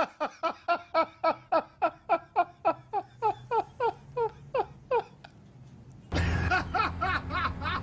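A long run of rhythmic 'ha-ha-ha' laughter, about three to four pulses a second, each dropping in pitch, slowing and stopping about five seconds in. About six seconds in, the background suddenly gets louder and more chuckling follows.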